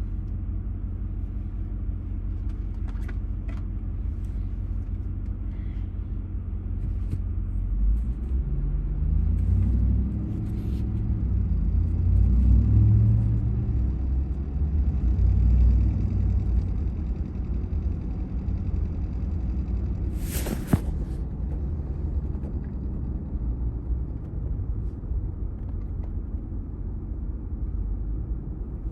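Cab interior of a Ram TRX pickup on the move: steady low engine and road rumble that swells for several seconds a quarter of the way in, then settles, with one sharp click a little past the middle.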